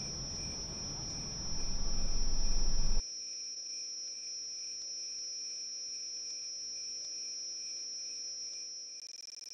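Crickets trilling steadily at a high pitch. Beneath them a low rumbling noise swells from about one and a half seconds in and cuts off abruptly at three seconds, leaving the trill alone.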